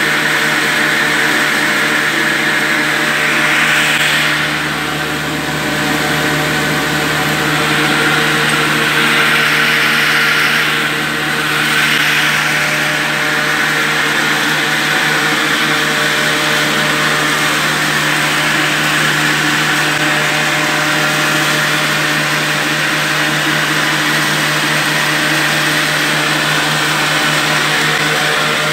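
Belt-driven wheat flour grinder and its 20 HP three-phase electric motor running: a steady hum with a dense whirring rush over it, dipping briefly in loudness about 5 and 11 seconds in.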